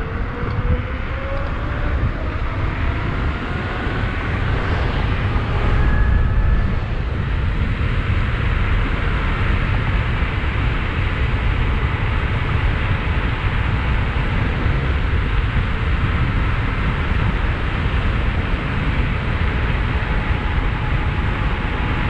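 Wind rushing over the microphone while riding an electric bike with a 5000-watt 72-volt DIY kit motor. A faint motor whine rises in pitch over the first several seconds as the bike picks up speed.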